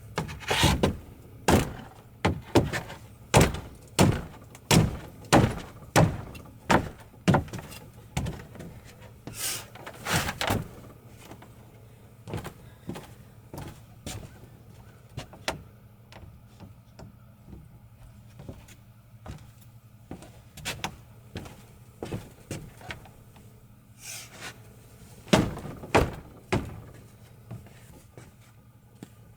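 Wooden deck board being knocked down into place: a quick run of heavy wooden thuds, about one and a half a second, then lighter scattered knocks and two more loud thuds near the end.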